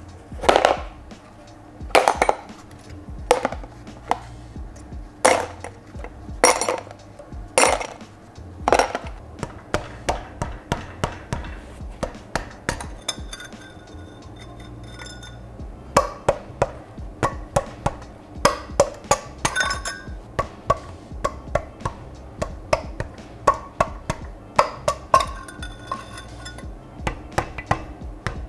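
Hammer blows tapping the cylinder sleeves out of an upside-down Renault 5 GT Turbo engine block from the crankcase side. Sharp knocks come roughly a second apart, then after a lull a quicker run of lighter taps, over background music.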